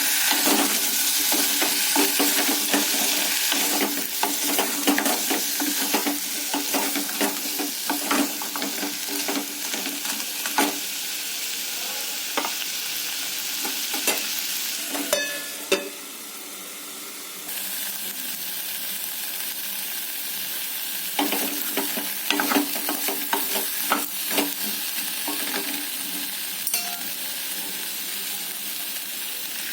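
Pumpkin pieces sizzling as they fry in a pan, with a spatula stirring and scraping, heard as many short clicks over a steady hiss. The sizzle and stirring die down briefly about halfway through, then resume.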